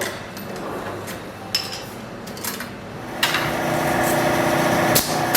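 Light metallic clinks and knocks of wire being handled, then about three seconds in a workshop machine starts with a sharp onset and runs with a steady buzzing hum, with one more sharp click near the end.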